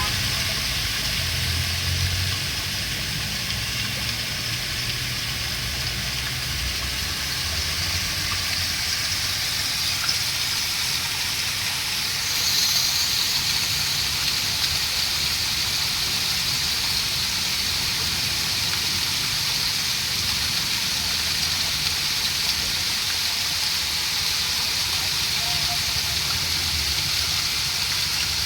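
Steady rush of flowing water, a constant hiss that grows a little brighter about halfway through, with a low rumble underneath in the first half.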